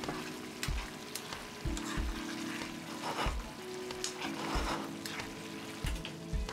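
Chili sauce with shrimp bubbling and sizzling in a frying pan while a ladle stirs it, over background music with a steady beat.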